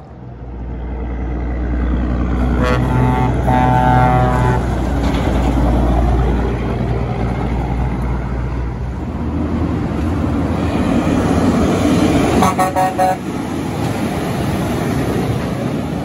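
18-wheeler air horn blowing over the low rumble and tyre noise of a passing semi truck: a chord-like horn blast broken into a few pulses a few seconds in, then a quick series of short toots around twelve seconds in.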